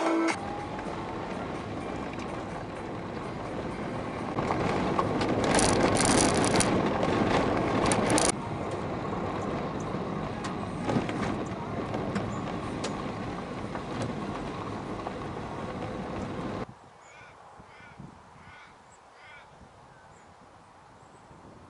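Car driving slowly on a gravel driveway, heard from inside the cabin: engine and tyres rolling on the gravel, louder for a few seconds in the middle. It cuts off suddenly to quiet open air with a few short bird calls.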